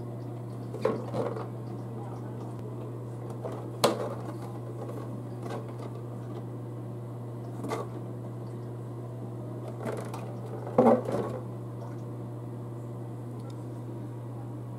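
A steady low hum in a small tiled room, broken by a few short knocks and rustles from the cardboard camcorder box being handled. The loudest knocks come about four seconds in and again near eleven seconds.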